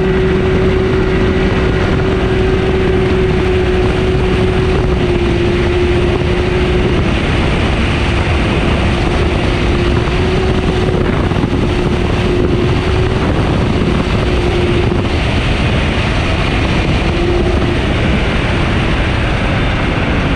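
Can-Am Maverick X3 side-by-side driving at a steady speed, its engine holding one even drone for about fifteen seconds. It is mixed with constant wind and road noise, and the engine note falters and returns near the end.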